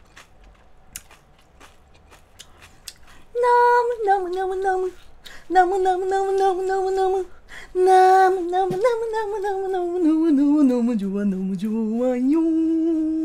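A woman's voice singing a short wordless tune, starting a few seconds in: several long notes held about a second each, then a wavering line that dips lower and climbs back.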